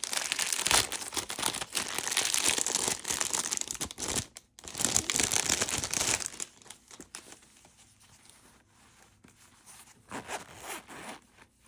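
Packaging crinkling and rustling as a new pouch is unwrapped and handled, dense and loud for about the first six seconds, then softer handling with a short burst of crinkling near the end.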